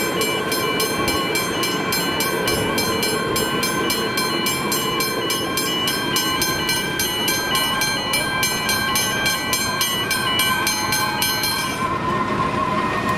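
A level crossing warning bell rings in rapid, even strokes over the rumble of a Comeng electric suburban train rolling past. The rapid strokes stop near the end, while a steady ringing tone and the train noise go on.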